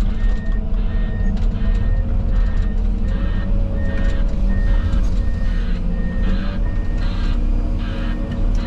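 A reversing alarm beeps at an even pace, about one and a half beeps a second, over the steady drone of heavy diesel machinery running under load.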